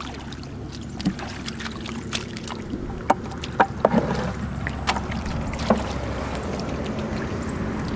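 Bare feet squelching and wading through wet mud, with a few sharp knocks and splashes as a bucket is handled, over a steady low hum.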